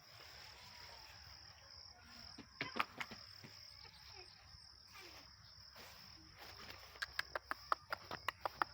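Steady high-pitched chirring of insects, with two runs of rapid sharp clicks, one about three seconds in and a longer one near the end.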